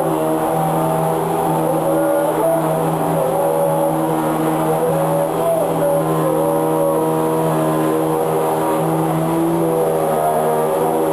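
Vacuum cleaner running steadily, its motor pitch wavering slightly.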